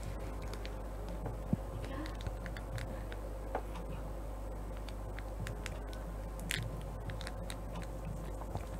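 Scattered light clicks of metal needles being pushed forward along the needle bed of a domestic flatbed knitting machine, with one slightly stronger click about two-thirds of the way in, over a steady low hum.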